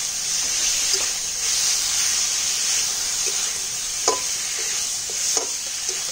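Drumstick and vegetable curry with mustard paste sizzling in a kadai as it is stirred and fried down with the spices, with a few sharp clinks of the spatula against the pan.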